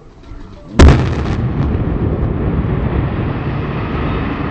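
A house blown up with explosive charges: one very loud blast about a second in, followed by a long, heavy rumble as the blast and the collapse carry on.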